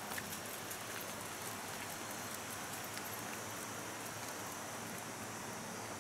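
Steady outdoor evening ambience: an even hiss with faint insect trilling, a high steady insect note growing clearer near the end.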